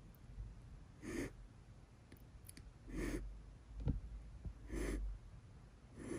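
Frightened tabby kitten hissing again and again: about four short, breathy hisses, roughly two seconds apart, with a sharp click about four seconds in. The hissing is a defensive threat from a scared kitten.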